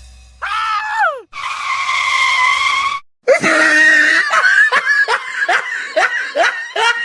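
A shrill voice screaming: one falling cry, a long held scream, then a run of short, falling yelps about twice a second.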